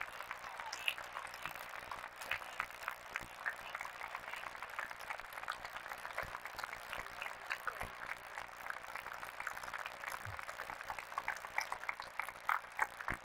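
Crowd of spectators clapping, a steady spread of many overlapping hand claps that grows a little sharper and denser near the end.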